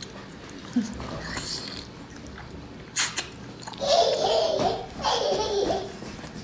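A sharp wet pop as the head of a whole octopus is bitten open, then two stretches of muffled laughter through a full mouth.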